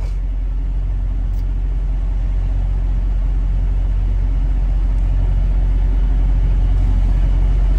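Semi truck's diesel engine idling, heard from inside the sleeper cab: a steady low rumble and hum.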